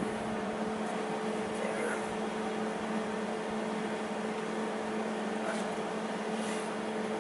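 Steady machine hum at one fixed pitch over a steady hiss, with a couple of faint light clicks.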